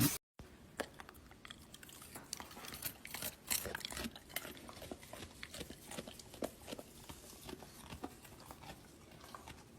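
A dog chewing: quiet, irregular crunches and clicks.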